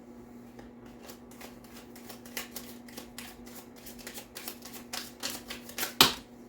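Tarot cards being handled and laid down: a run of quick light taps and flicks, the loudest a sharp snap near the end, over a faint steady hum.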